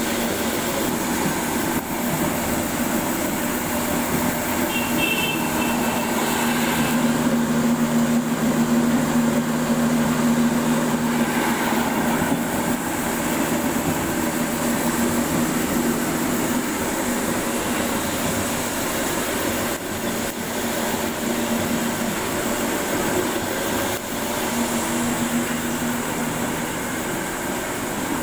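Belt-driven village flour mill (stone chakki) running: a loud, steady mechanical drone with a low hum that swells a little several seconds in.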